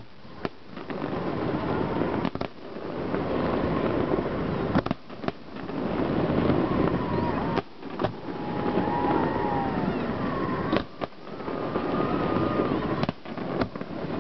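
Aerial fireworks shells bursting with a series of sharp bangs about every two to three seconds, over a steady noisy background.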